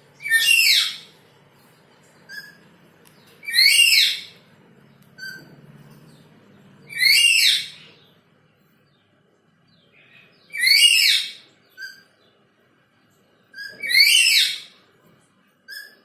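Black-capped lory calling: five loud, high calls, each under a second and sweeping downward in pitch, about every three and a half seconds, with short, softer chirps in between.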